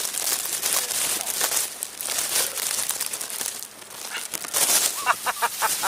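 Close crackling and rustling noise on the microphone, with a short voice-like sound near the end.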